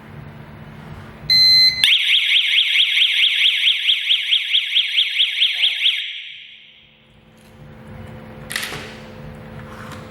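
Siren of a DY-G10A GSM home alarm system going off: a short steady beep, then a fast warbling wail of about five rises a second that lasts about four seconds before fading out. A brief rustle comes near the end.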